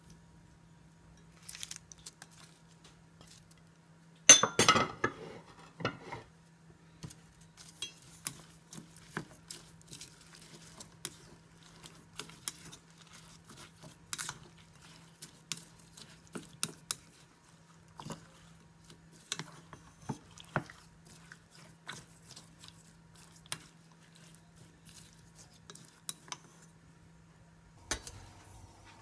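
Wooden chopsticks clicking and scraping against a stainless steel mixing bowl in irregular taps while stirring vegetables into thick tempura batter, with a louder clatter about four seconds in. A faint steady low hum runs underneath.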